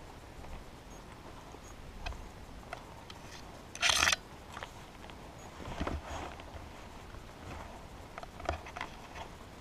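Rustling and scraping of clothing, gear and brush close to the microphone, with scattered small clicks and one louder, brief swish about four seconds in.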